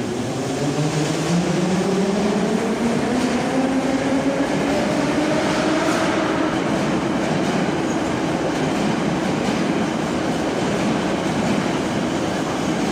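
Metro train pulling out of the station. Its traction motors whine, rising in pitch as it accelerates over the first five or six seconds, then settle into a steady rumble of wheels on the track as it passes.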